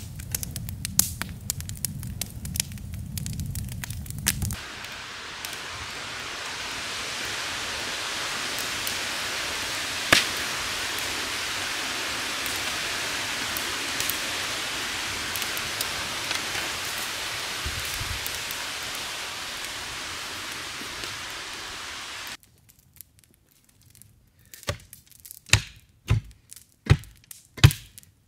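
Log fire crackling and popping. After a cut comes a long, even rush of wind in the forest canopy, then a clamshell post hole digger is jabbed into the soil in a quick series of thuds near the end.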